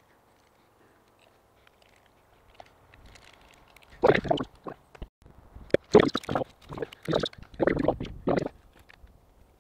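Rustling, scraping and clicking as insulated pump wire and cable are handled and pulled at the well head. The sounds come in a cluster of irregular bursts starting about four seconds in and stopping shortly before the end.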